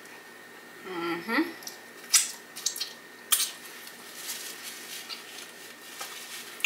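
A paper napkin crinkling and rustling while hands and mouth are wiped, giving a few sharp crackles between about two and three and a half seconds in. Just before that comes a short hummed 'mm' from the eater.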